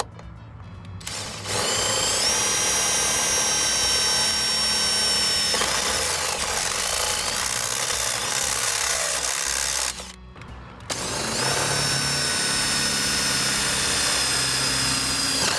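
Porter Cable 20V cordless drill boring holes in a truck's steel firewall. Its motor whine rises as it spins up and then holds steady. It stops for about a second near the middle, then starts again and runs on.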